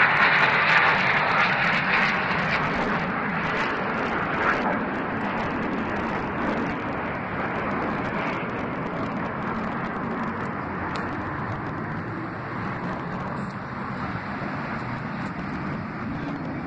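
Jet noise from the Blue Angels' F/A-18 Hornet fighter jets, a broad rushing sound that fades steadily as the formation flies away.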